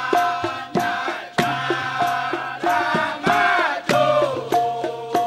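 Dikir barat performance: a chorus of male voices singing together, with sharp percussion strokes about every half second and a recurring steady ringing note.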